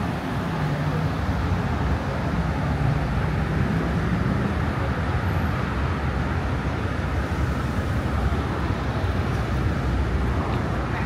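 Steady street traffic noise: vehicles running past, with a low engine drone in the first few seconds.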